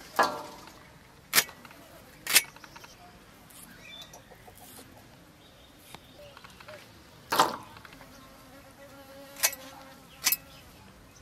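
Crisp snaps of fresh drumstick (moringa) pods being cut on an upright boti blade, about six spread over the stretch. Two of them carry a short metallic ring, fitting pieces dropped into a steel plate.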